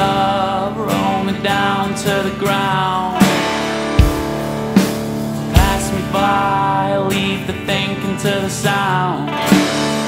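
Heavy blues-rock band music led by electric guitar, with bass and drum hits.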